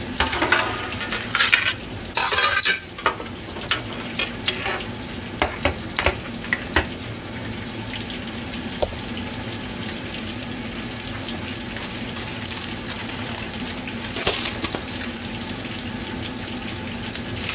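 Metal kitchenware clattering: a wire rack and a stainless-steel tray handled on a stainless counter, with a run of clanks and taps over the first several seconds. After that a steady low hum with a faint sizzle of frying, and a brief rustle near the end.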